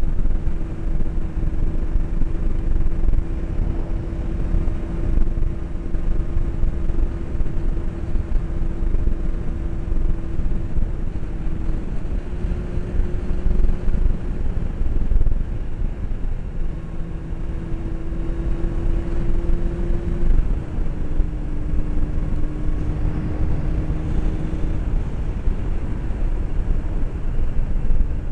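Honda CBR600 inline-four engine running at a steady cruising speed, heard from inside the rider's helmet under heavy wind rumble. Its steady tone drops out briefly near the middle and shifts slightly in pitch a few times.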